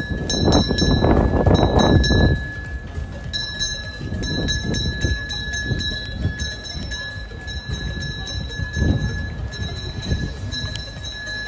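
Walking sounds: uneven footfalls and low rumbling noise on the microphone, loudest in the first two seconds, with a thin steady high tone running underneath.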